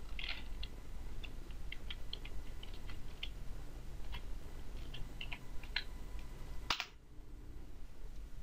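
Typing on a computer keyboard: a run of quick keystrokes, then one louder click about two-thirds of the way in.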